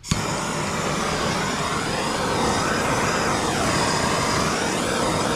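Handheld Bernzomatic gas torch burning, its flame making a steady rushing hiss that starts abruptly at the very beginning.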